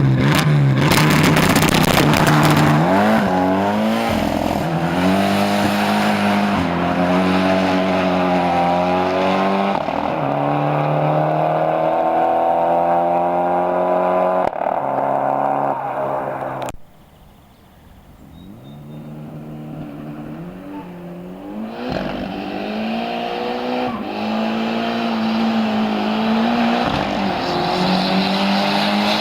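Twin-turbocharged Ford Pinto inline-four in a Sierra accelerating hard through the gears, its pitch climbing and then dropping back at each shift. About 17 seconds in the sound cuts off abruptly, then the engine builds up again through more shifts.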